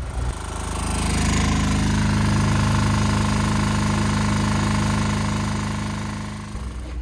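A machine running with a rapid, even hammering rattle for about six seconds, building up and then dying away.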